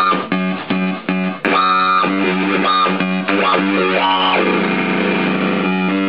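Joystick-controlled synthesizer playing a quick run of short stepping notes, then a held note, then a wavering, fluttering tone from a little past the middle, with quick notes again near the end.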